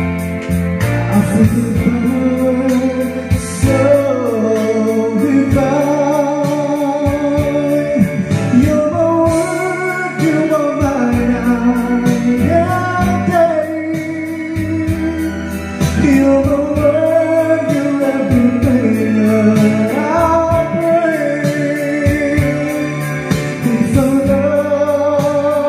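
A karaoke song playing from the HDT Premier-98Pro karaoke player: keyboard-led music with a voice singing a love-song melody.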